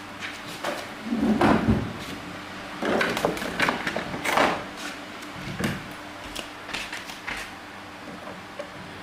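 Irregular knocks, scrapes and clatter of parts and tools being handled, loudest in two busy stretches about a second in and about three to five seconds in, then a few lighter clicks.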